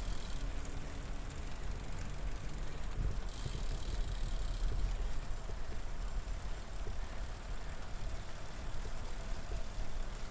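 Steady low rumble of a recumbent trike rolling along a trail, with wind buffeting the microphone.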